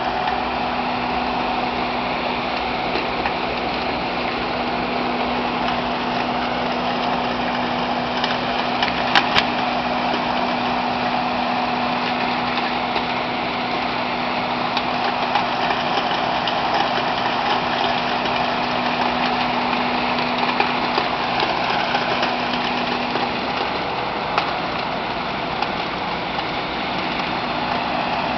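LTMG LT65 skid steer loader running with its snow blower attachment: a steady machine noise with a held hum that drops out near the end, and a few sharp clicks about a third of the way in.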